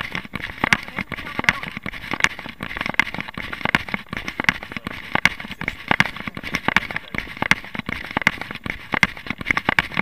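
A runner's footfalls on a paved path, with rapid knocking and rattling from a body-worn camera jostling with each stride.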